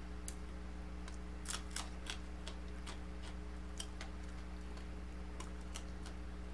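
Eating crisp deep-fried whole tilapia: scattered sharp crackles and mouth clicks, a dozen or so at uneven intervals, as the fried fins and bones are pulled apart and chewed, over a steady low hum.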